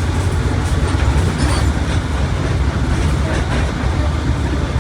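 Mercedes-Benz OF1721 BlueTec 5 diesel bus running at speed: a steady, loud low engine rumble with an even wash of road noise over it.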